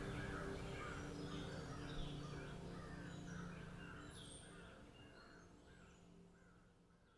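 Birds calling outdoors: a run of short harsh calls repeating two or three times a second, with fainter high chirps, over a steady low hum, the whole fading out gradually.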